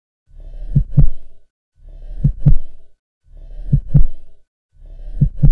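Heartbeat sound effect: slow, deep double thumps (lub-dub), each pair swelling in and repeating about every one and a half seconds, four beats in all after a moment of silence.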